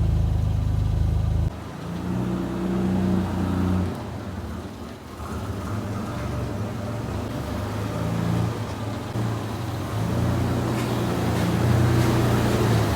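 Pickup truck engine running while under way. Its pitch holds steady at first, then shifts up and down with the revs.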